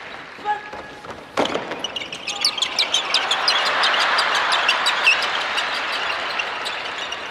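Many sneakers squeaking on a hardwood gym floor as a large group of performers marches and turns in unison: quick, high chirping squeaks several times a second, over a wash of audience applause. A single sharp knock comes about a second and a half in.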